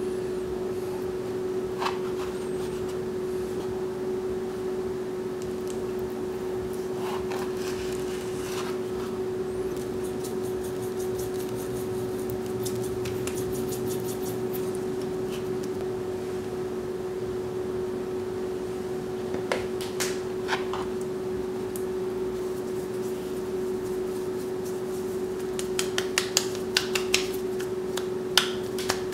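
A steady hum runs under light food-handling sounds on a board. There are a few taps, a patter of fine ticks in the middle as salt grains are sprinkled over pieces of raw salmon, and a quick cluster of sharp clicks near the end as the fish is patted in starch.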